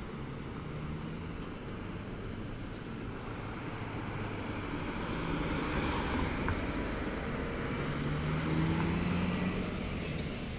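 Road traffic: cars passing with engine hum and tyre noise, swelling as an SUV goes close by about halfway through and again near the end, when an engine tone rises in pitch.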